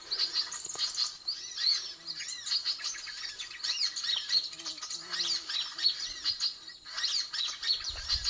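Dense, rapid chirping and twittering of many small birds, a 'suara ribut' commotion call used as a lure to draw birds such as sunbirds to the trap.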